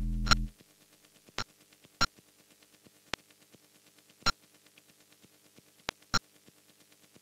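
Electronic music with a drum-machine beat cuts off about half a second in. It is followed by a faint steady hum and about six sharp, scattered clicks at irregular intervals.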